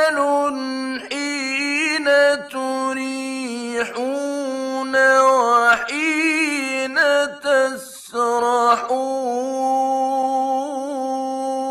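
A man chanting Quran recitation in long, drawn-out melodic phrases, holding notes with wavering trills and gliding ornaments. There are short pauses between phrases.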